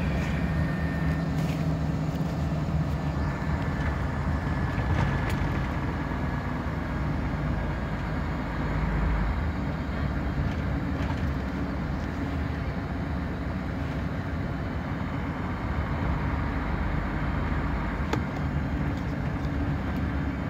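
Scania DC9 nine-litre five-cylinder diesel engine of a Scania K114IB coach running under way, heard inside the passenger cabin as a continuous low drone that rises and falls in pitch, mixed with road noise. Now and then there is a light rattle from the interior.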